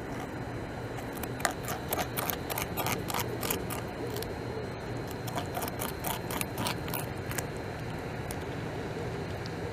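Beaver gnawing bark off a log: a run of quick, irregular crunching clicks from its teeth, starting about a second in and stopping near the end, over a steady low background hum.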